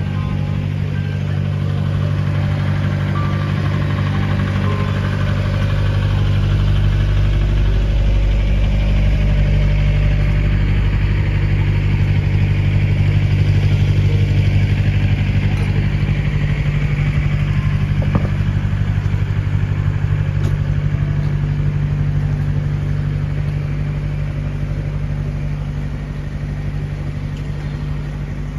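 A motor vehicle engine running at a steady speed, a continuous low hum that swells toward the middle and eases off near the end.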